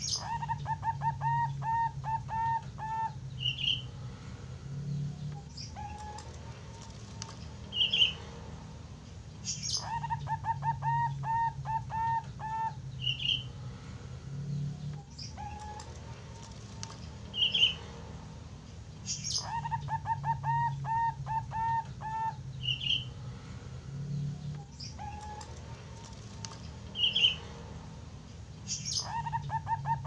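Young Bangkok-strain zebra dove (perkutut) singing: a quick run of deep, bass-heavy cooing notes, the same phrase coming back about every nine to ten seconds. A short high chirp falls between phrases.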